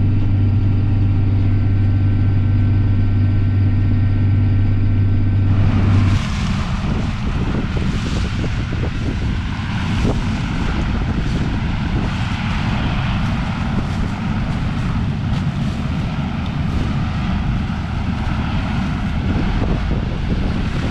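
Farm tractor's diesel engine droning steadily at a road speed of about 31 mph, heard from the cab. About six seconds in the sound cuts abruptly to a rougher, noisier rumble with hiss.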